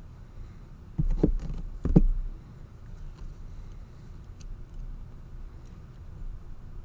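A few sharp knocks and clicks of small metal lock parts being handled and fitted back into a brass lever padlock's body, the loudest about two seconds in, followed by soft handling noise.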